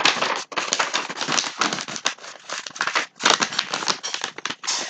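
A paper order slip crinkling and rustling as it is folded over by hand: a dense, irregular run of crackles.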